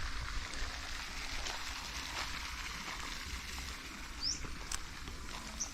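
Steady outdoor hiss of open-air ambience, with a bird giving a short rising chirp about four seconds in and a few faint ticks.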